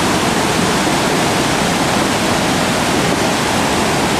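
The Pailón del Diablo waterfall on the Pastaza River: a steady, loud rush of white water plunging onto rocks in a narrow gorge.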